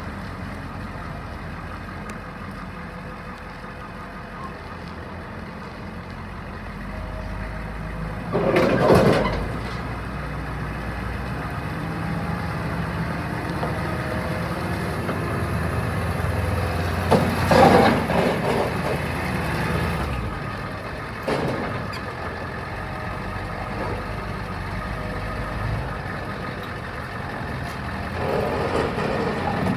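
1991 International 4600 dump truck's engine running as the truck drives slowly and turns, with two louder short bursts of noise, about a third of the way in and again a little past halfway.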